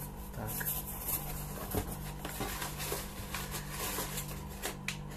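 Cardboard parcel box and its plastic packing tape being handled and torn, giving irregular crackles and rustles, over a steady low hum.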